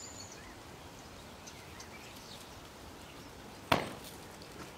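Quiet outdoor ambience with a few faint bird chirps, broken by a single sharp knock about three and a half seconds in.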